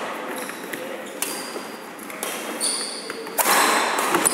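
Badminton rally: three sharp racket strikes on the shuttlecock about a second apart, with shoes squeaking on the wooden court and voices in the background.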